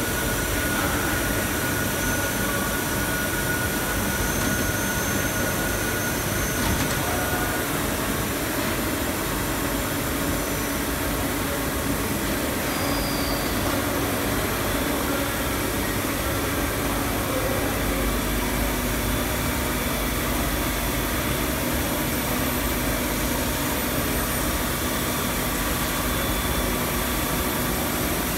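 1997 Nakamura-Tome TW-20 MMY twin-spindle CNC lathe running, a steady mechanical hum and hiss, with a faint high steady whine that stops about eight seconds in.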